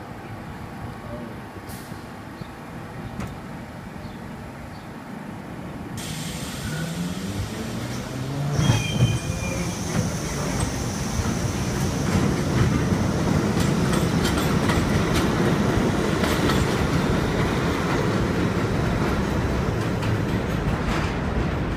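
R42 New York subway train pulling out and running on an elevated steel track. It starts quiet, and from about six seconds in the motors whine upward as it gets going. It then settles into a loud, steady rumble of wheels on rail with a high metallic hiss.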